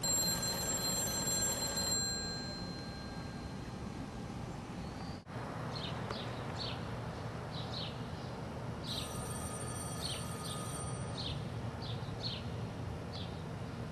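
Payphone ringing with an electronic ring in two-second bursts separated by about four seconds of silence, once at the start and again about nine seconds in. Small birds chirp between the rings.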